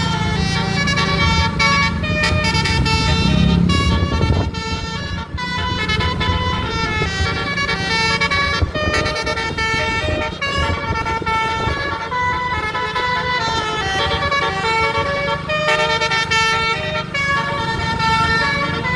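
A 12-note basuri bus horn playing a melody: a continuous run of horn notes changing pitch every fraction of a second. A steady engine hum runs under it, strongest in the first four seconds.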